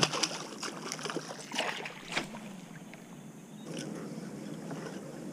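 A sharp knock on the small boat's hull, the loudest sound, then a few short splashes and clicks as a hooked fish thrashes at the surface beside the boat. Faint wind on the microphone rises near the end.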